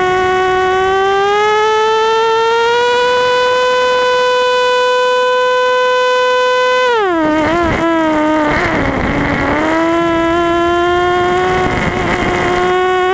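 FPV quadcopter's motors and propellers whining, heard from the onboard camera. The pitch rises as the motors spin up for a climb, holds, then drops sharply about seven seconds in as the throttle comes off, with a wobbling pitch and a rush of wind noise, before settling back to a steady whine.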